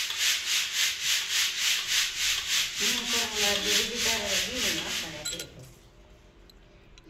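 Wheat grain swishing rhythmically in a sieve shaken back and forth, about four to five strokes a second, stopping about five seconds in.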